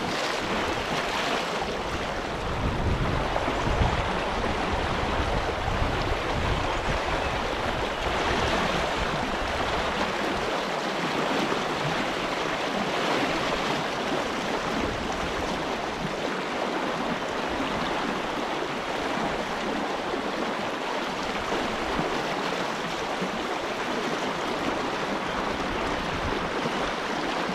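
Fast river current rushing and gurgling over a shallow riffle, a steady wash of water sound, with a low rumble through roughly the first ten seconds.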